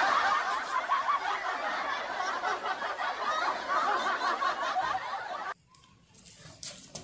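Laughter from many voices at once, dense and continuous, cutting off suddenly about five and a half seconds in.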